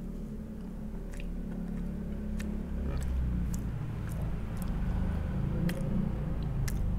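A person chewing a mouthful of crumbly baked lemon slice bar, with scattered small clicks, over a low rumble that grows louder about three seconds in.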